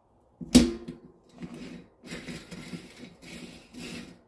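A sharp metal clack about half a second in as a bicycle freewheel sprocket cluster is set down onto the rear hub. It is followed by a run of short, quieter scraping and rattling sounds as the cluster is turned by hand onto the hub threads.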